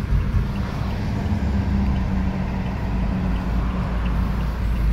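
A car moving along the road, heard from inside the cabin: steady engine hum and road rumble with a low, even drone.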